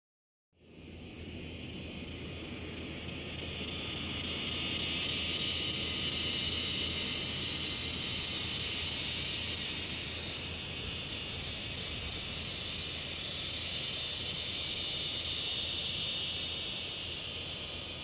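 Evening insect chorus in the trees: a loud, steady shrill buzzing hiss that swells and eases slightly, with a higher, evenly pulsing trill above it.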